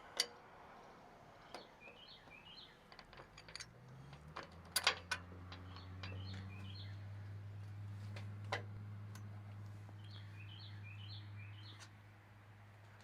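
Small birds chirping in short runs, with scattered sharp clicks and knocks. A low steady hum comes in about four seconds in and fades near the end.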